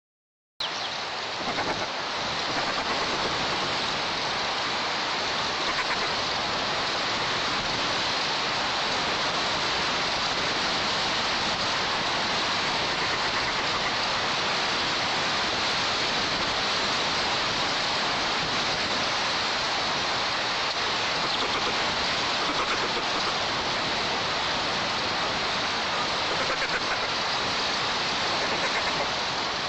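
Strong wind through the pine and over the nest-camera microphone, a steady loud hiss that cuts in abruptly about half a second in.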